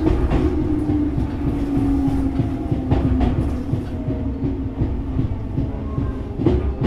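Tobu 6050-series electric train heard from inside the car behind the cab, its TM-63 traction motors humming with a tone that falls in pitch over the first few seconds as the train slows. Wheels rumble and clack over the rail joints, with a sharp knock about three seconds in and another near the end.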